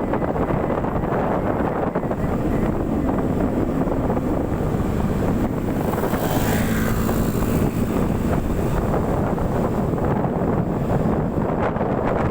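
Wind rushing over the microphone with the running and road noise of a moving vehicle. A louder swell with a low steady hum comes about six seconds in.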